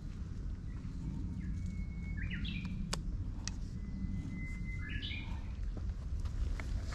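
A songbird singing twice, each song a long held whistle that breaks into a quick run of higher notes, over a steady low outdoor rumble. A couple of sharp clicks sound in the middle.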